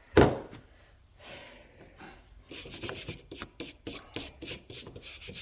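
A metal file being worked by hand across a rifle barrel to cut a flat. A single sharp knock comes just after the start, and from about halfway in there are quick, evenly repeated rasping strokes.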